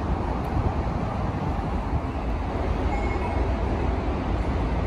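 JR East 209 series 500 electric commuter train pulling into the platform and drawing to a stop: a steady low rumble of the train rolling on the rails.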